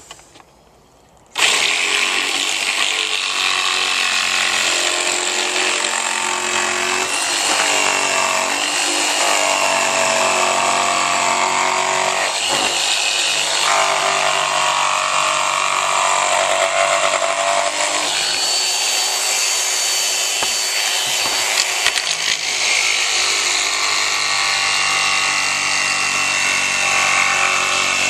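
Electric jigsaw starting about a second and a half in, then running continuously as it cuts rounded corners into a wooden board. Its tone shifts a few times during the cut.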